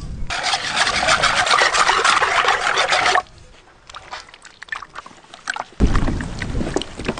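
Wet batter and raw chicken pieces being handled in a steel vessel: a dense, crackly wet rubbing for about three seconds, a quieter stretch with a few small clicks, then a sudden thump a little before the end and more wet mixing.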